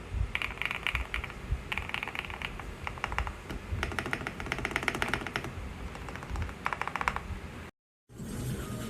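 Typing on a GMK67 65% mechanical keyboard: quick runs of key clicks in bursts with short pauses between them, cut off abruptly near the end.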